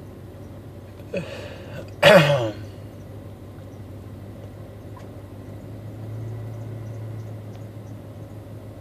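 A man hiccupping: a small catch about a second in, then one loud hiccup a second later whose pitch falls.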